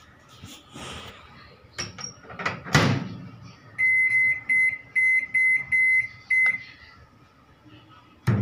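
Microwave oven being set: a few knocks and a clunk as the bowl goes in and the door is shut, then a string of about seven short electronic beeps as the Time/Menu dial is turned to set the cooking time. A click near the end as the oven starts.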